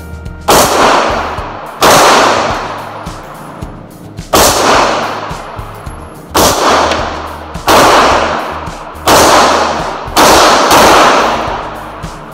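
Taurus TS9 9mm pistol fired seven times at an uneven pace, each shot ringing on in the hard-walled indoor range. Faint background music runs underneath.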